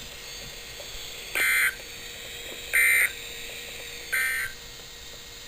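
NOAA Weather Radio SAME end-of-message data bursts: three short bursts of digital tone, each about a third of a second long and about a second and a half apart, marking the end of the weekly test broadcast. A steady radio hiss runs underneath.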